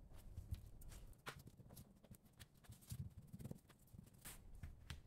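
Faint, scattered taps and soft thumps of gloved hands pressing and smoothing kinetic sand into a plastic container.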